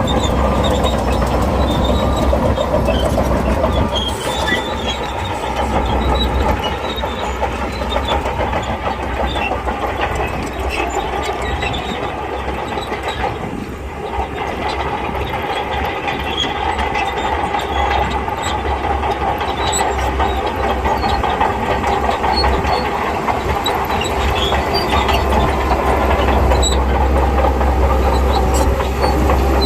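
SHANTUI crawler bulldozer working, its diesel engine running steadily under load while the steel tracks clank and rattle.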